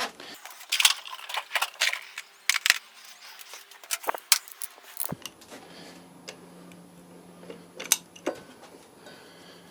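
Metal hand tools clinking and clattering, with a quick run of sharp clicks over the first five seconds and a few more near the end. A faint steady hum comes in about five seconds in.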